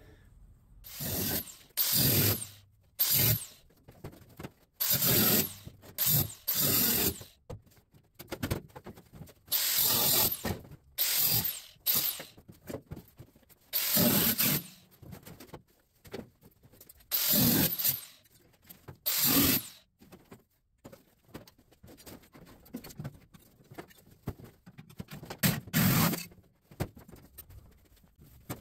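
Repeated short bursts of metalworking on a truck cab's sheet-steel roof pillar, about a dozen, each a second or so long with brief pauses between.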